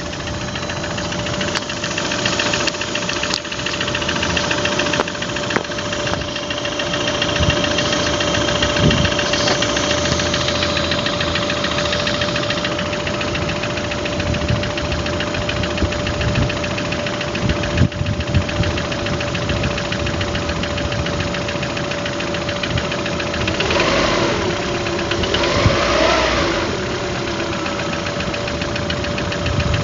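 Car engine running with a knock, the fault the owner is recording, over a steady whine. Near the end it is revved up and back down twice.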